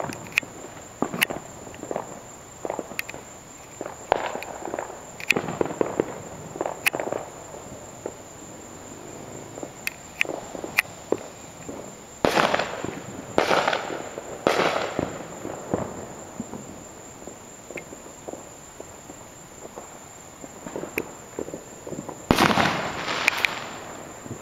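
Fireworks and firecrackers going off at a distance: scattered sharp pops and crackles, with a cluster of three louder bursts in the middle and another loud, drawn-out burst near the end.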